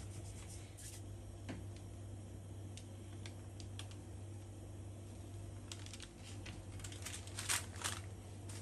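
Light taps and handling noises over a steady low hum, with a cluster of sharper clicks and cloth rustling near the end as a cotton kitchen towel is spread over a baking tray of bun dough.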